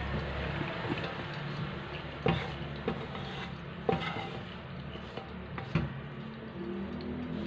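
Boiled chicken pieces being pushed out of a metal wok with a wooden spatula into a wire strainer over a steel pot: a steady wet scraping and sliding noise broken by about four sharp knocks as the wok and spatula hit the strainer.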